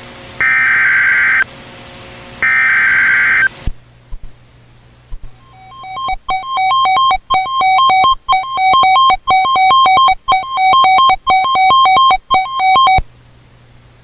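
The end of a NOAA Weather Radio Emergency Alert System header: the last two of the three short buzzing SAME data bursts, then a few clicks and the EAS attention tone. The attention tone is a steady two-pitch tone that sounds for about seven seconds, broken by brief dropouts about once a second, and then stops.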